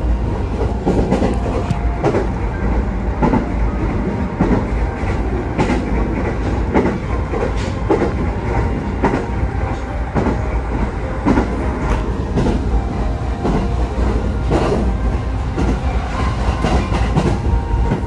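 Electric passenger train running at speed, heard from inside the carriage: a steady low rumble with the wheels clicking over rail joints again and again.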